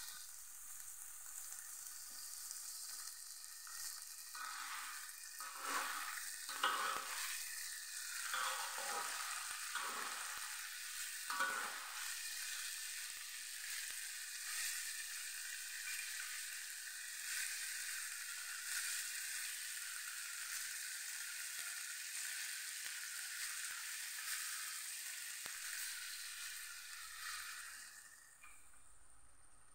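Long beans, red chilies and shallots sizzling in a hot metal wok, a steady hiss of frying. A metal spatula scrapes and tosses them several times in the first half, and the sizzle drops away near the end.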